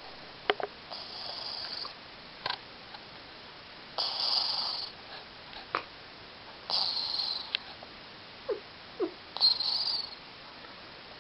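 A sleeping cat snoring: four hissing breaths about every two and a half to three seconds, with a few sharp clicks between them and two brief squeaks near the end.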